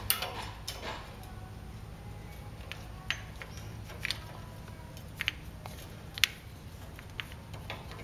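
Scattered light metallic clicks of a folding Allen wrench set working the screws of a steel firebox door's glass retainer, with one sharper click about six seconds in, over a steady low hum.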